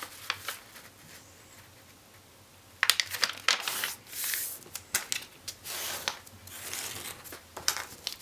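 Stiff origami paper being folded and creased by hand: a sharp snap about three seconds in, then repeated crisp rustling and crackling as the fold is pressed flat. The first couple of seconds are nearly still.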